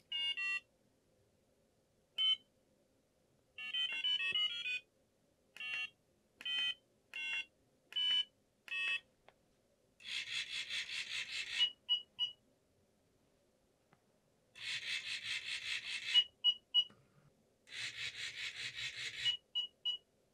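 An educational robot kit's controller buzzer plays short start-up beeps and a quick rising run of tones as it is switched on. Then the robot's small geared DC motors whir for about a second and a half three times as it turns left and right, each burst followed by three quick beeps, the buzzer's 'woof woof woof' bark melody.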